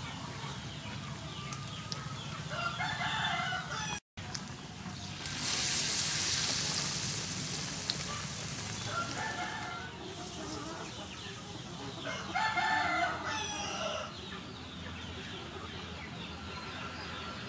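Battered shrimp-topped bread deep-frying in hot soybean oil in a wok: a loud sizzle starts suddenly about five seconds in and slowly eases. A rooster crows three times.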